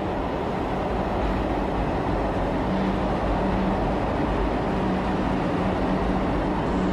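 Kolkata Metro Purple Line train pulling into an elevated station platform: a steady rumble of its wheels on the rails as the carriages run past, with a low hum that comes and goes midway.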